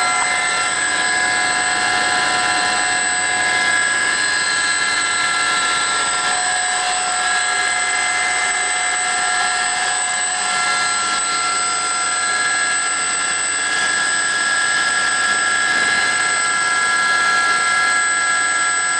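Aérospatiale Gazelle helicopter in cruise flight, heard from inside the cabin: the turbine and rotors run steadily, a constant noise with several high, steady whining tones over it, unchanged in level throughout.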